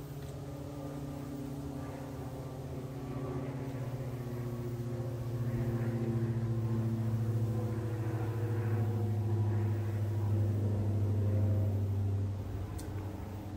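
A low, steady mechanical drone, like a motor running, with a hum and a few slightly wavering tones above it. It grows louder, then drops off sharply near the end.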